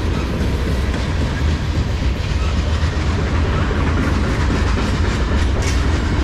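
Cars of a long CSX manifest freight train rolling past close by: a loud, steady rumble of steel wheels on the rails.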